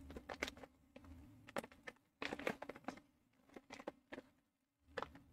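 Mountain House freeze-dried meal pouch being handled and torn open: scattered faint crinkles and crackles of the foil pouch, with a longer, louder crackling burst a little over two seconds in.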